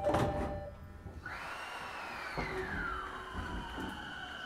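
Inside a JR East 209 series (500 subseries) electric commuter train: electronic chime tones with sharp clicks end in the first second. About a second later, a whine from the train's inverter and traction motors starts, rises and then falls in pitch as the train pulls away, and settles into steady high tones over a low rumble.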